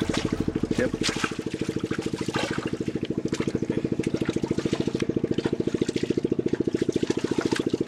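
A small engine running steadily with a fast, even pulse, with short splashy water sounds and clicks over it.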